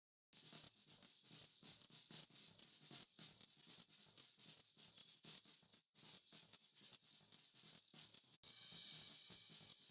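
Drum recording's hi-hat track played on its own: a quick, steady, bright ticking pattern with the low end cut off below about 100 Hz. It starts abruptly a third of a second in and drops out for an instant about eight seconds in.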